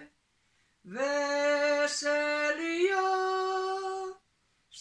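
An elderly woman singing a hymn in Romanian, solo and unaccompanied. After a pause of about a second she sings one phrase of long held notes, stepping up in pitch partway through, and breaks off near the end.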